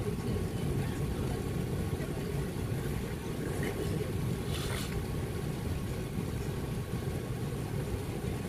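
Steady low rumble inside the cabin of an Airbus A380 taxiing, its engines at idle with a faint constant whine. A short click comes a little before halfway.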